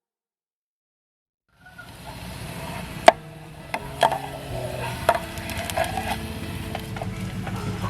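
A few sharp knocks on wood over a steady low background, starting after about a second and a half of silence; the loudest knock comes about three seconds in.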